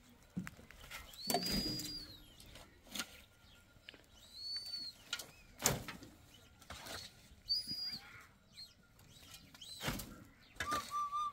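A metal shovel scraping along a pickup truck's steel bed and flinging loads of manure off, in separate strokes a few seconds apart. Short high whistling tones that rise and fall come three times among the strokes.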